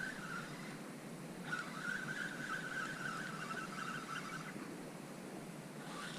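Fishing reel being cranked to retrieve a lure: a steady whine from the reel that breaks off briefly about half a second in, runs again for about three seconds, stops, and starts up once more near the end. A low rushing background lies underneath.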